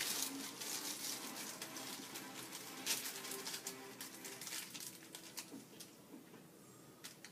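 Small kit screws being handled, with light clicks and rattles that are dense at first and thin out over the last few seconds.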